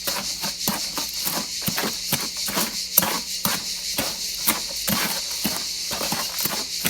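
A dry sand-and-cement mix, with pigment added, being stirred and scraped with a hand tool: a quick, irregular run of short scrapes and knocks, several a second.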